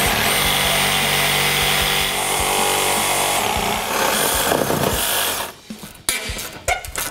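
Power tool cutting through a rusted radiator-support-to-frame mounting bolt, with a steady high whine over the grinding noise of the cut. It stops about five and a half seconds in, followed by a few short knocks.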